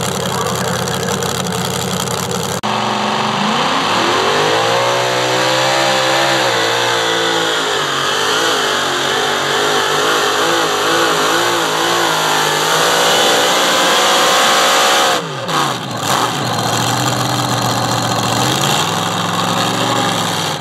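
Pro Modified pulling tractor's supercharged engine at full throttle on a pull: its pitch climbs on launch, wavers up and down as the tractor bounces down the track, then falls as the run ends. Before that an engine is idling steadily, and near the end an engine idles and revs up again.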